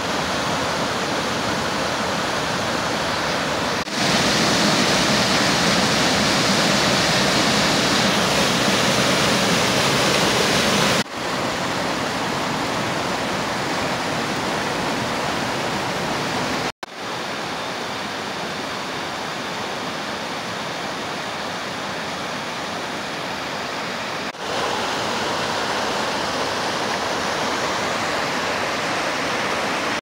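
Mountain stream rushing over waterfalls and rocky cascades: a steady, loud rush of white water. Its level shifts abruptly a few times, loudest for several seconds near the start, with a brief dropout about halfway through.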